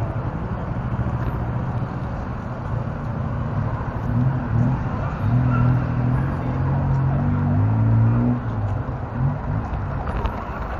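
Street traffic noise with a steady road rumble, picked up by a camera riding low on a moving RC car. A motor vehicle's engine runs close by from about four to eight seconds in.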